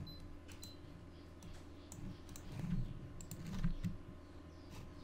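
Faint computer mouse clicks and keyboard key presses, scattered sharp ticks, over a low steady hum, with two soft low thumps about a second apart near the middle.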